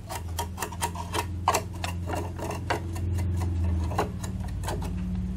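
A small sewing brush scrubbing lint out of the metal rotary hook and bobbin area of a portable sewing machine, as cleaning before oiling. The bristles and handle make quick light clicks against the metal, about three a second, over a steady low hum.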